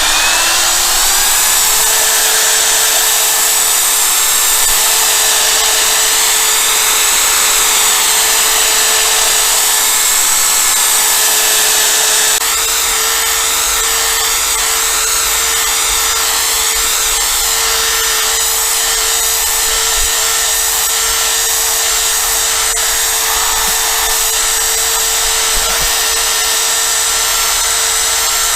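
A power drill spins up and runs steadily, driving a wet polishing sponge across a plastic motorcycle windscreen to polish out haze. Its whine rises at the start, then holds one pitch, easing slightly in level about twelve seconds in.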